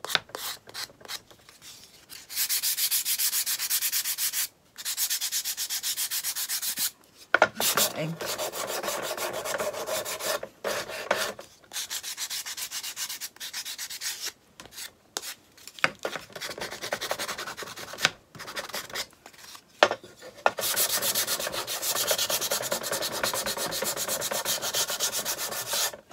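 Hand-sanding the edges of a black-painted wooden paddle with a sanding sponge, distressing the paint: quick back-and-forth rubbing strokes in long runs broken by short pauses.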